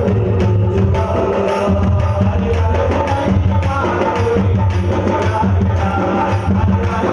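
Devotional Ayyappa bhajan music with a steady hand-drum beat of about two strokes a second under a sustained drone and melody.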